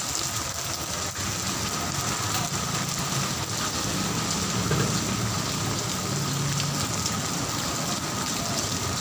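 Heavy rain falling steadily, an even hiss, with a faint low hum through the middle.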